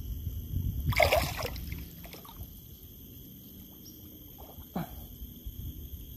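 Lake water sloshing around a person wading neck-deep, with a louder splash about a second in and a short sharp sound near the end.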